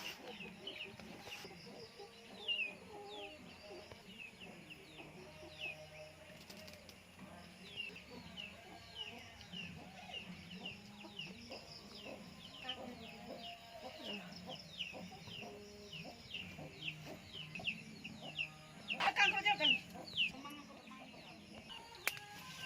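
Chickens: a steady run of short, falling cheeps a few times a second, with a louder harsh squawk about 19 seconds in.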